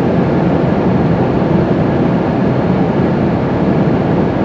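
Steady road and engine noise inside a moving car's cabin, a loud, even rumble with no breaks.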